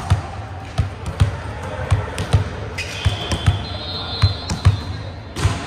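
Volleyballs bouncing on a hardwood gym floor, repeated irregular thuds about twice a second, in a large echoing gym.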